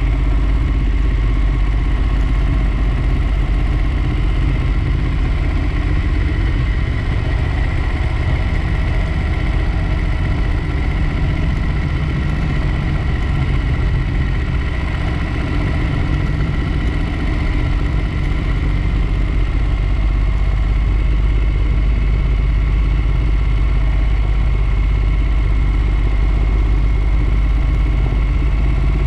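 Ducati Monster 1200S motorcycle's L-twin engine running at steady, unchanging revs, with a deep low rumble.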